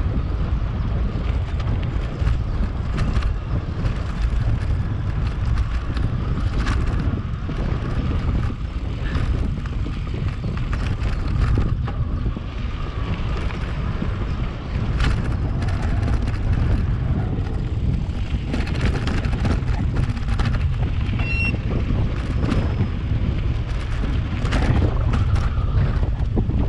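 Wind buffeting the microphone while riding an e-mountain bike: a loud, steady low rumble with scattered clicks and knocks.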